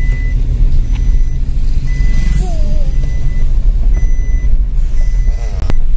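Steady low rumble of a car in motion, heard from inside the cabin, with several short high electronic beeps every second or so.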